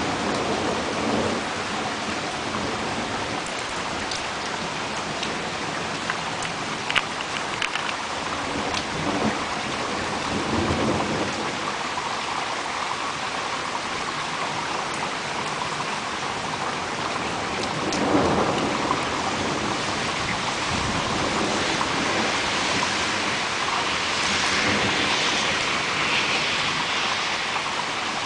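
Rain falling steadily in a thunderstorm, with swells that fit thunder rumbling a few times, the strongest about eighteen seconds in.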